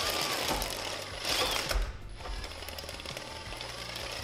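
Cordless drill turning a 3D-printed tank track assembly through its drive sprocket, the plastic track links rattling in fast, steady clicks over the sprockets and bearings while the drill motor whirs. The running is quiet, barely any noise.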